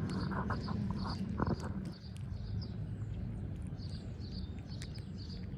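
Baby squirrel chewing a grape held in its paws close to the microphone: soft, wet clicks and small smacks.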